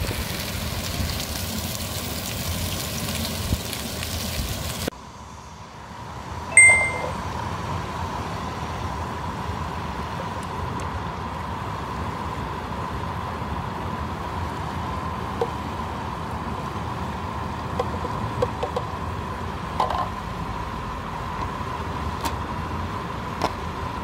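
A steady hiss with a faint steady whine under it, louder for the first five seconds and then dropping abruptly. About six and a half seconds in, one sharp ringing metal clink, then a few lighter clicks and clinks, as of a cooking pot and utensils being handled.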